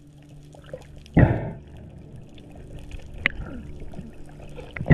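Underwater sound picked up through a camera housing: a faint steady low hum, broken about a second in and again at the end by two loud short rushes of bubbles and moving water, with a sharp click in between.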